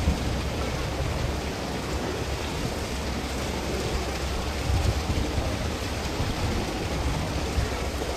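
Wind buffeting an outdoor microphone: a steady rushing hiss with irregular low rumbling gusts.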